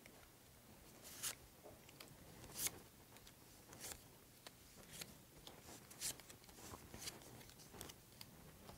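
Faint taps and rustles of small paper squares being picked up and set down on a wooden tabletop, about one every second.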